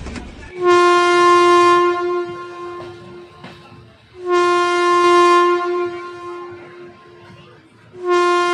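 Train locomotive horn sounding three long blasts, one steady tone each, lasting two to three seconds. The first comes about half a second in, the second about four seconds in, and the third starts near the end.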